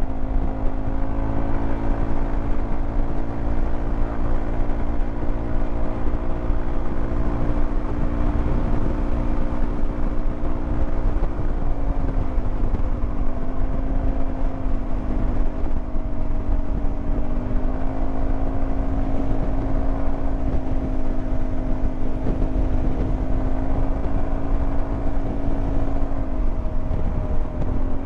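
Yamaha XMAX 300 scooter's single-cylinder engine running at a steady cruising speed. Its tone dips briefly twice, about halfway through and near the end, as the throttle eases, and there is a steady low rumble underneath.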